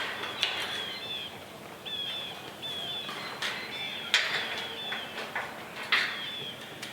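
Small birds chirping over and over in short, high, falling chirps, with a few sharp knocks in between, the loudest about four seconds in.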